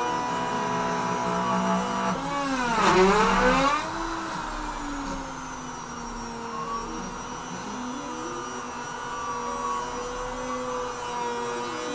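Bauer trim router on a Longmill CNC router whining steadily as its bit carves rounded egg pockets into a wooden board. About two seconds in, its pitch sweeps down and back up, the loudest moment.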